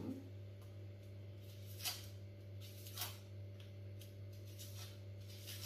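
Small knife working the skin off a red onion held in the hand: a couple of short crisp scrapes, about two and three seconds in, over a steady low hum.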